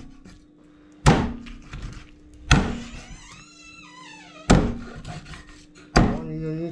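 Heavy blade chopping down onto a wooden block: four hard strikes about a second and a half apart.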